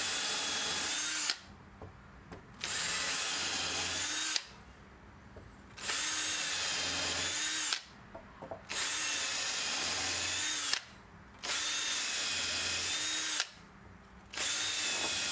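Cordless drill with a twist bit drilling holes into wooden boards, running in about six bursts of around two seconds each with short pauses between.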